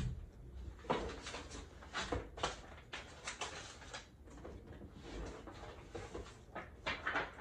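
Cardboard box and packaging being handled and pulled apart: an irregular scatter of short rustles, scrapes and knocks.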